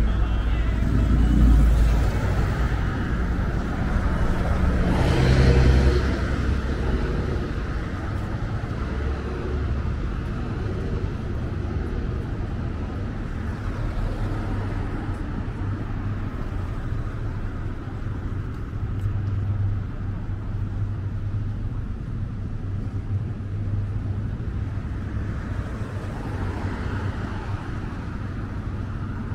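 City street traffic: a steady rumble of road noise, with vehicles passing close by about a second in and again around five seconds in.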